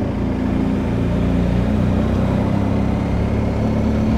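BMW R1250 GS Adventure's boxer twin engine running steadily while the motorcycle rolls along at low speed, a low, even drone.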